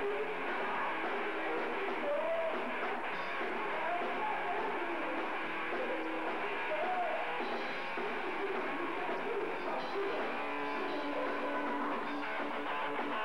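Live rock band playing on stage: electric guitars and bass guitar over drums, heard thin with little low end.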